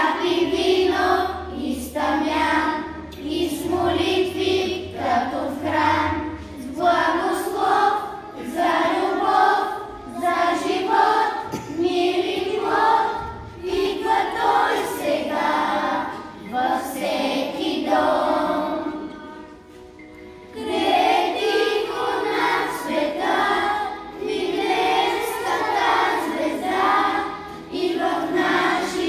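Children's choir singing together in sung phrases, with a short break about two-thirds of the way through before the next phrase.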